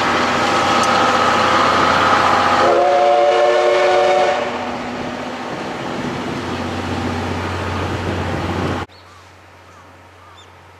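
Steam-hauled passenger train of C58 363 running away round a curve, its coaches rolling on the rails. A train whistle of several pitches sounding together goes off a little under three seconds in and lasts about a second and a half. The train sound drops off, then cuts out sharply near the end to quiet air with faint bird chirps.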